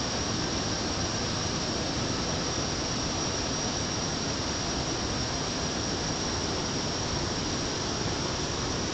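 Steady background hiss with a faint high whine, unchanging throughout.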